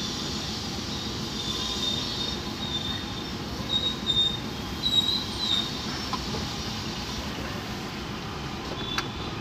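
Chevrolet Enjoy's engine idling steadily, with a few short high-pitched chirps over it and a single click about nine seconds in.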